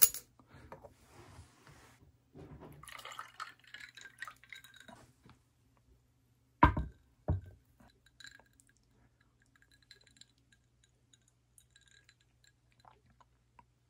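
Liqueur poured from a large glass swing-top jar into a small glass over ice cubes, followed by two sharp knocks of glass or lid about a second apart and then faint ice clinks.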